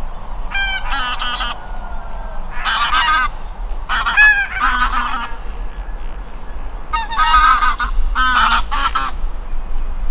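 Geese honking: about six short bursts of several rapid honks each, spread over the stretch.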